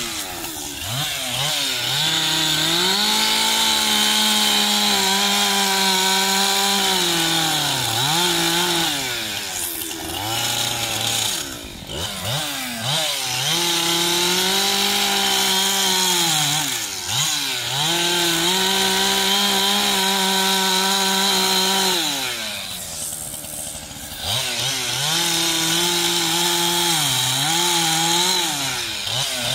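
Chainsaw carving into a block of wood, running at high revs through each cut. Between cuts it drops back toward idle and revs up again, about half a dozen times, with the longest let-off near the end.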